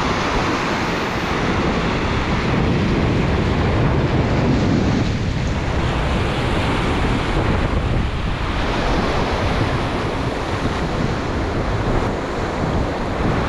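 Sea waves washing on the shore, with strong wind buffeting the microphone in a heavy low rumble; the surf swells a little a few times.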